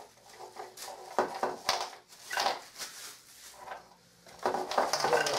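Packing paper crinkling and rustling as it is pulled off a small wooden toy, with a few light clacks of wooden parts knocking together. The crinkling gets denser near the end.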